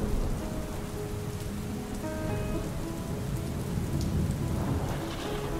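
Steady rain falling, with a low rumble beneath it and soft, slow music notes held over the top.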